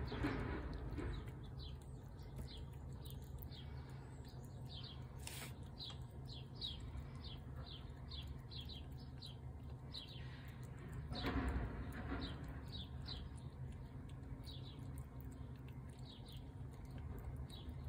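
A small bird chirping over and over, short falling chirps about twice a second, over a steady low outdoor rumble. A brief louder noise comes about eleven seconds in.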